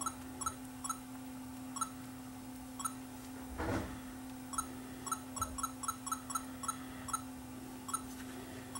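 Sony HDV camcorder giving short, same-pitched confirmation beeps as its touchscreen buttons are pressed to set the clock, about fifteen in all, some spaced out and some in quick runs of several a second. A steady low hum runs underneath, and a brief rustle of handling comes a little under four seconds in.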